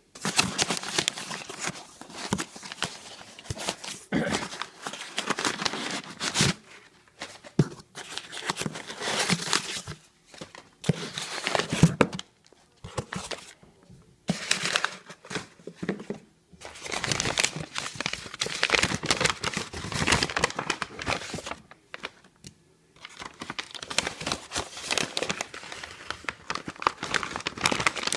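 Packing paper and paper parts bags being rustled and crumpled by hand, in irregular bursts with short pauses.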